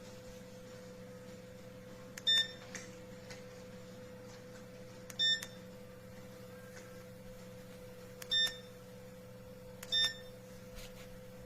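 Four short electronic beeps, each a single high tone, spaced about two to three seconds apart over a steady low electrical hum.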